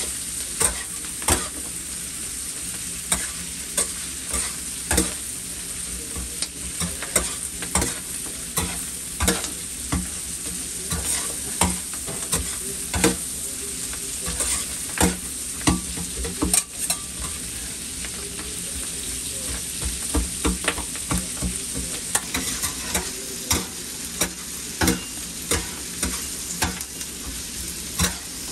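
Food sizzling on a flat iron griddle while metal spatulas stir and strike it: a steady frying hiss under frequent sharp clacks, about one or two a second.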